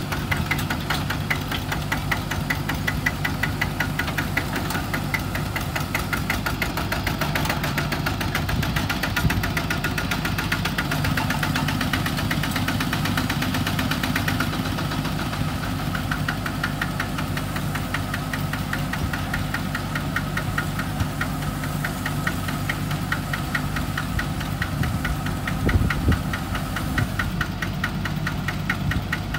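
Single-cylinder diesel engine of a Kubota two-wheel walking tractor idling with a steady, rapid knocking beat. A single thud sounds about three-quarters of the way through.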